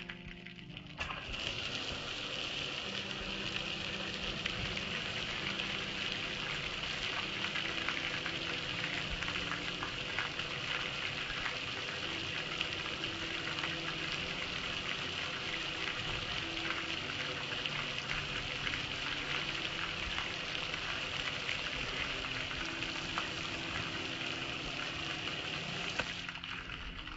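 Steady hiss of water running and splashing down over a soapy gas grill, starting suddenly about a second in and stopping near the end.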